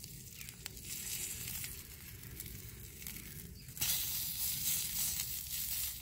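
Food frying in oil in a pan over a twig stove, sizzling with fine crackles. It gets louder about four seconds in.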